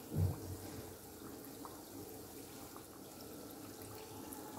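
Vegetable oil sizzling and bubbling steadily around egg rolls deep-frying on medium heat in a deep pan, with a brief low sound just after the start.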